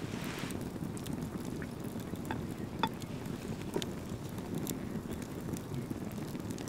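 Steady low wind rumble on the microphone, with scattered small sharp clicks and cracks as pieces of ostrich eggshell are broken and picked away by hand.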